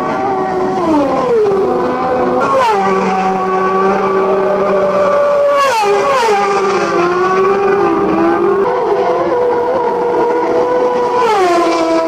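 Road-racing motorcycles passing at full speed one after another, their high-revving engines screaming, each note dropping sharply in pitch as a bike goes by, about five times.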